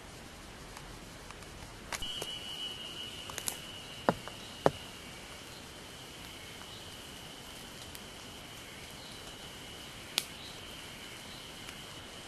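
An insect calling with a steady, high-pitched, unbroken buzz that starts about two seconds in. Three or four sharp clicks stand out, two close together around four seconds in and one near ten seconds.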